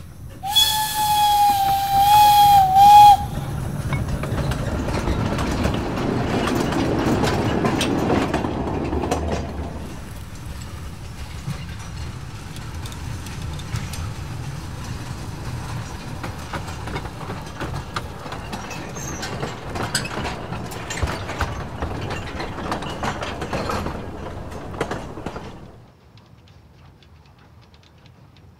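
A 600 mm narrow-gauge steam locomotive sounds its whistle for about three seconds, then runs by with its train: a rumble and hiss of steam, with scattered clicking of wheels over the rails. The sound drops off abruptly near the end.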